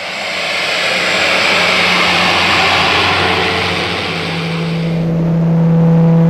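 Twin turboprop aircraft engines running: a loud steady roar with strong propeller hiss. From about four seconds a steady low hum comes up under it.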